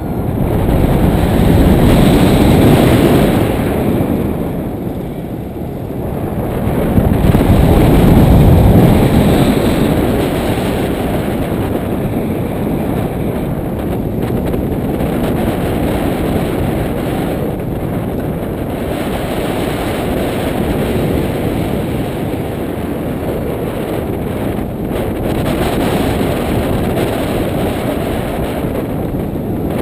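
Wind blowing over a GoPro's microphone during a paraglider flight: a deep, steady rush that swells loudest about two seconds in and again around eight to nine seconds, then settles to a more even level.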